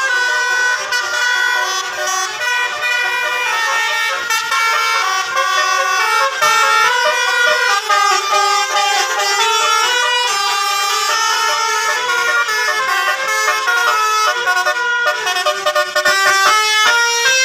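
Indonesian bus 'basuri' telolet horn: a multi-tone horn sounding several notes at once and stepping from note to note in a melody, played on continuously.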